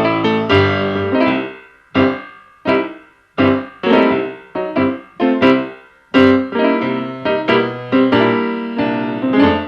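Background piano music: single notes and chords struck one after another, each starting sharply and dying away.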